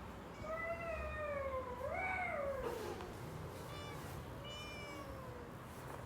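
A domestic cat meowing: one long drawn-out meow that sinks, swoops up and trails off, followed by a few shorter, higher meows.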